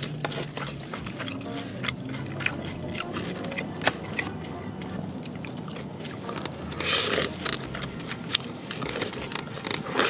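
Close-miked eating with chopsticks: wet chewing and mouth clicks, with one loud slurp of a mouthful about seven seconds in.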